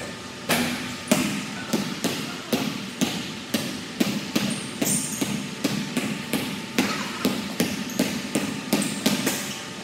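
Basketball being dribbled on a hardwood gym floor, about three bounces a second, each one echoing in the hall. A few short, high sneaker squeaks come in around the middle and near the end.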